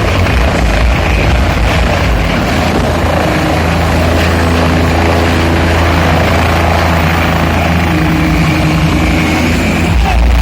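Helicopter running close by: a loud, steady noise of rotor and engine with a constant low hum.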